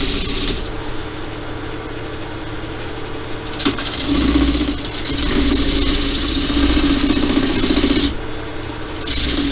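Wood lathe running, with hand sanding of the spinning wooden workpiece making a loud rasping hiss over the motor hum. The sanding stops about half a second in, leaving the lathe's thin steady whine, comes back after a click just before four seconds, and pauses again briefly near the end.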